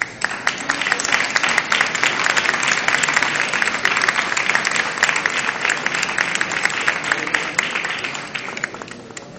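A crowd applauding: dense clapping that starts abruptly and dies away near the end.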